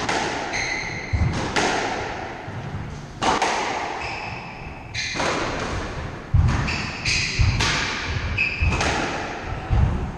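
Squash rally: the ball cracks off the rackets and the walls about every one and a half seconds, each hit echoing in the court. Court shoes squeak briefly on the wooden floor between the shots.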